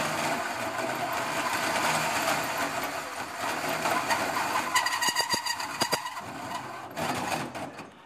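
Power drill driving a hole saw through a metal panel: a steady grinding whirr. About five seconds in a high squeal and rapid chattering come in for a second or so, and the drilling dies away near the end.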